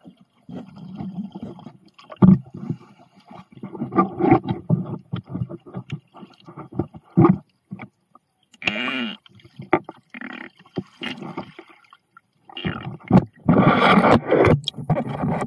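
Water sloshing and gurgling around an underwater camera housing held just below the surface, heard through the sealed case. It comes in irregular surges with short knocks and scrapes from handling.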